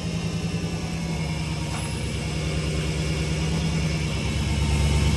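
Supercharged 6.2-litre Hellcat HEMI V8 idling with a steady, even pulse, growing a little louder toward the end.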